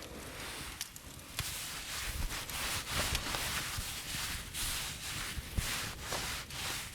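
Close rustling and scratching with scattered light clicks, getting louder about two seconds in.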